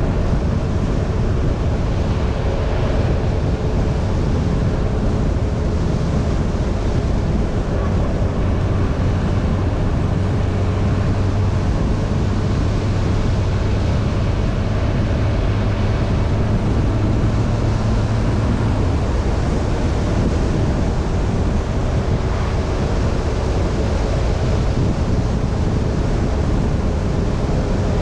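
Yamaha motorcycle riding at a steady pace: a constant rush of wind on the microphone over a low, even engine hum that grows stronger through the middle of the ride.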